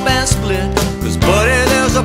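Background music: a song with a steady drum beat, bass and a gliding melodic lead line.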